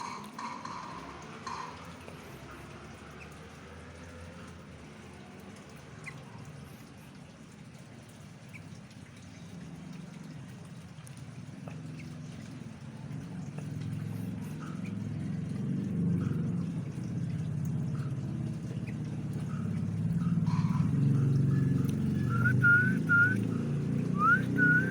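A pet bird giving sparse, short chirps and whistled notes, with a quick run of three near the end. Under it a low rumble grows steadily louder through the second half.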